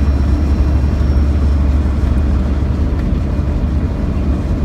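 A steady, loud low rumble with a faint hiss above it, with no distinct knocks or calls.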